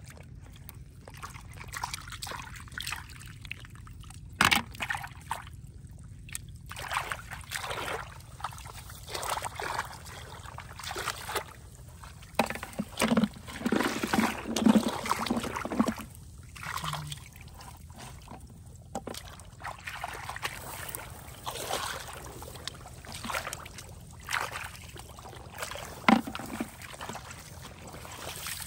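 Shallow muddy water sloshing and splashing in irregular spells, with a couple of sharp slaps.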